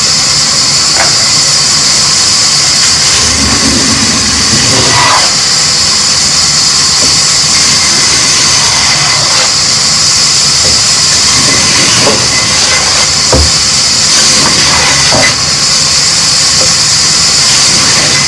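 A loud, steady machine running with a strong, even hiss, broken by a few scattered knocks and clicks.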